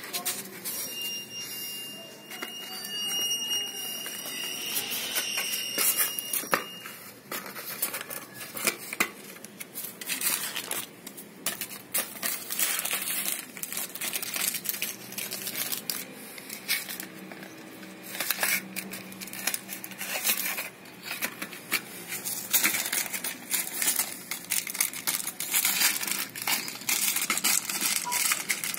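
A puppy chewing and tearing at a cardboard toothpaste carton, with irregular crackling, crinkling and ripping of the card. A steady high whistling tone sounds for the first few seconds.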